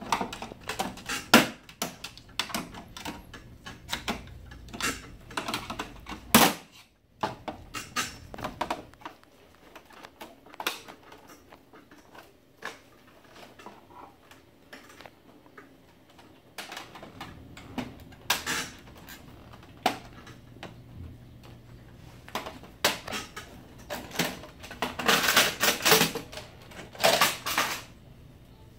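Plastic covers and doors of an HP M452 laser printer being handled, giving irregular sharp clicks, snaps and knocks, with a denser run of louder clicks near the end.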